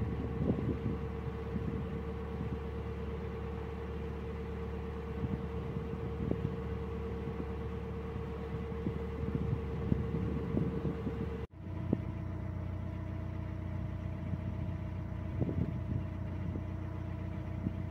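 Narrowboat's diesel engine running steadily as the boat cruises, a constant low hum. About two-thirds of the way through the sound cuts off for an instant and the hum resumes with a slightly different note.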